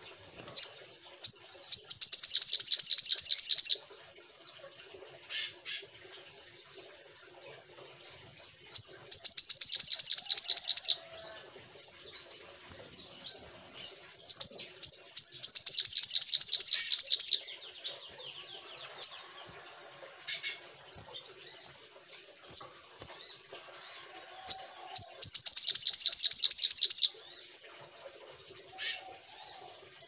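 Olive-backed sunbird singing: four fast, high-pitched trilled song phrases of about two seconds each, with short sharp chirps between them.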